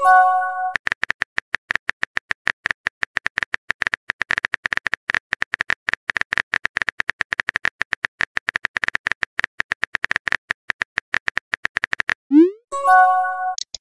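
Phone keyboard typing sound effect: a rapid, even run of tap clicks that stops about 12 seconds in. A short chime sounds at the very start, and near the end a rising swoosh is followed by another chime, the message-sent sound.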